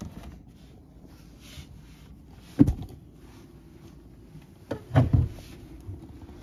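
Dull knocks against wooden furniture: one about two and a half seconds in and a quick run of three or four around five seconds, with soft rustling and brushing between.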